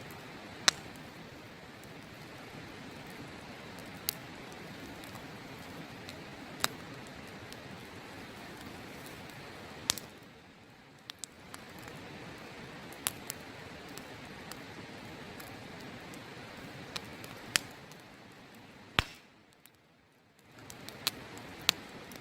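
Wood campfire crackling, with sharp pops of burning wood every few seconds over the steady rush of a river. The background rush drops away briefly twice.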